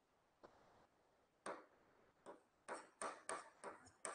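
Faint short strokes of a marker pen writing on a whiteboard, a few spaced out at first and then several in quick succession.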